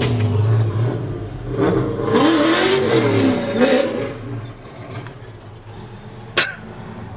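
Motor vehicle engine revving, its pitch rising and falling, then settling lower; a single sharp click about six seconds in.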